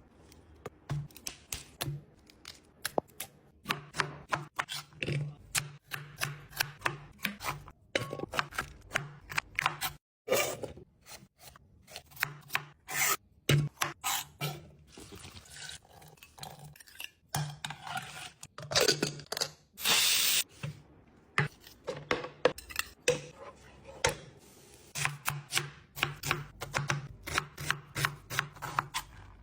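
Kitchen food-preparation sounds: a knife chopping vegetables on a cutting board in quick runs of strokes, with rubbing and scraping in between.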